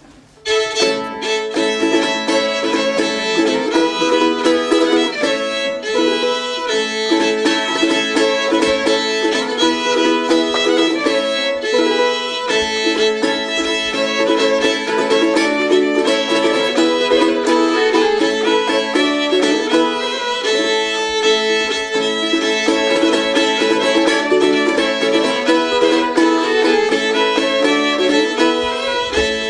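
Old-time Appalachian fiddle tune, starting suddenly about half a second in and playing on steadily.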